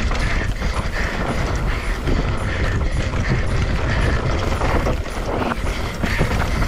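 Mountain bike riding fast down a dry dirt trail: wind rumbling on a chest-mounted action camera's microphone, tyres running over loose dirt, and frequent short knocks and rattles from the bike over bumps.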